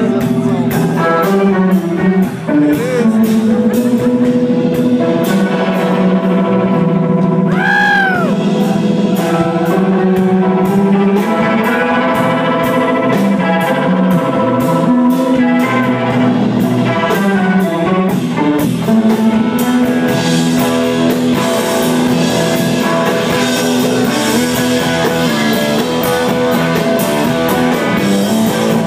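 Live rock band playing an instrumental passage: electric guitar lead over drum kit with cymbals and keyboard, with a brief swooping note about eight seconds in.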